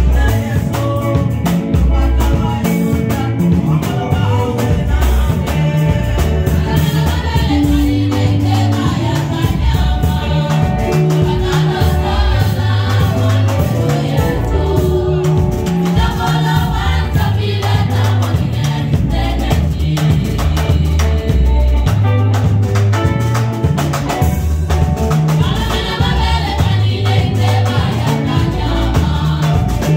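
Gospel choir singing through microphones with a live band of keyboard, electric guitar and drum kit keeping a steady, driving beat.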